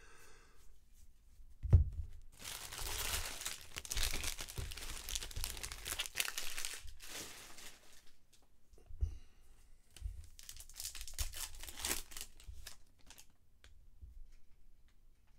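A trading-card pack wrapper being torn open and crinkled, in two long rustling stretches. A sharp knock comes just before the first stretch.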